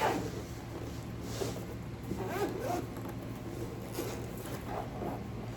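Zipper of a hard-shell keyboard carrying case being drawn open in several short pulls.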